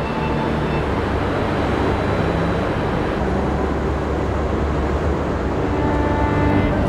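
Steady traffic noise at an airport terminal curb: the even noise of vehicle engines running close by.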